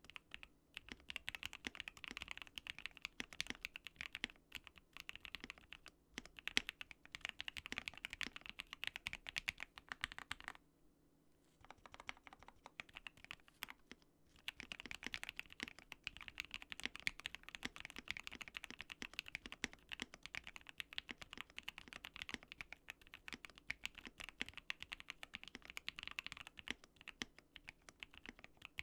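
Continuous fast typing on a mechanical keyboard fitted with lubed Gateron Black Ink V2 linear switches, in a GMMK Pro with a polycarbonate plate and PE foam mod. The keystrokes stop for about four seconds a third of the way in, then resume.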